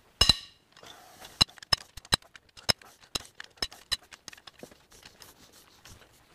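A cylinder head bolt on a Suzuki GSX-R 750 engine cracks loose under a breaker bar with one sharp metallic crack and a brief ring. A run of light metal clicks follows, about two or three a second, as the tool is worked.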